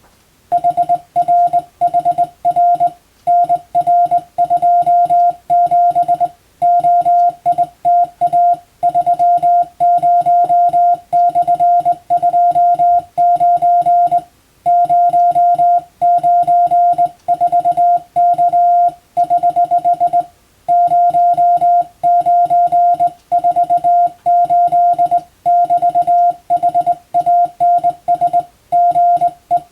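Morse code (CW) as a single steady mid-pitched beep keyed on and off in fast dots and dashes, grouped into words with short pauses, sending English telegram practice text.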